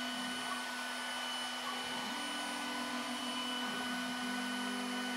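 ShopBot Desktop CNC router's spindle running as a 60-degree V-bit engraves letters into holly laminated on cherry, with dust extraction drawing through the spindle's hose. A steady whine and rushing noise, whose tone shifts slightly about two seconds in and again near the end.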